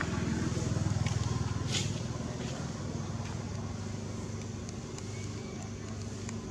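A motor vehicle's engine running, a low steady hum that is loudest in the first two seconds. A brief sharp click comes near two seconds in.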